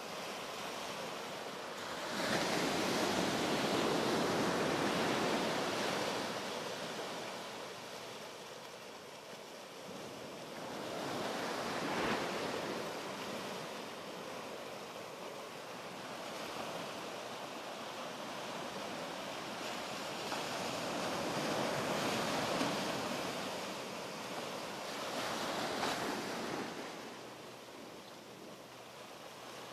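Small ocean waves washing up a sandy beach and around rocks, the surf swelling and falling away every several seconds, loudest a few seconds in.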